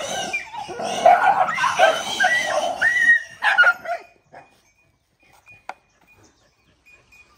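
A pack of dogs fighting over food: loud, short yelps and barks for about four seconds, then it drops to near quiet with a few faint clicks.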